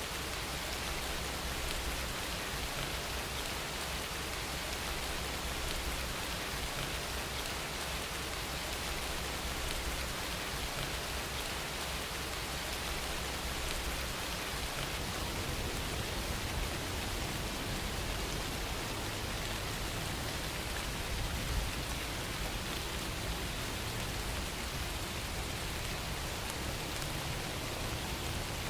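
Recorded rain ambience: steady rain falling, an even hiss of drops that holds unchanged throughout.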